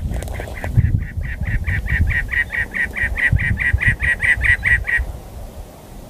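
Cactus wren singing its harsh, chugging song: a fast run of identical notes, about five or six a second, that stops abruptly about five seconds in. Low wind rumble on the microphone underneath.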